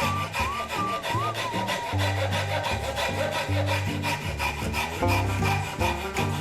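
Background music with a steady, fast beat and a stepping bass line, over a rubbing scrape of wood being sanded or filed.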